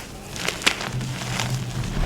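Gym chalk being crumbled and crushed: scattered dry crackles with two sharper snaps in the first second, over a steady low hum.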